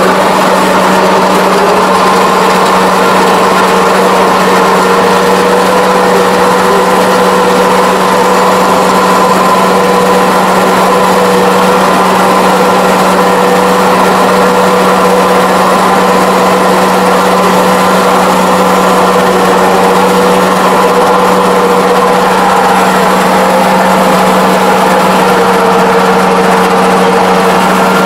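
Kubota ARN460 rice combine running steadily while harvesting, heard from inside the cab: the engine and threshing machinery make a loud, even drone with a higher whine that wavers slightly.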